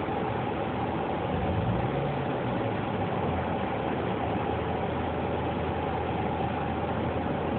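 A steady mechanical hum with a low drone and a constant hiss, unchanging throughout.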